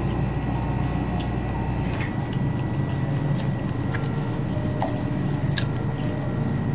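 Steady low hum of shop machinery such as refrigerated coolers, with its deepest part dropping away about two seconds in. A few light clicks and taps come from chopsticks and a paper noodle cup being handled during eating.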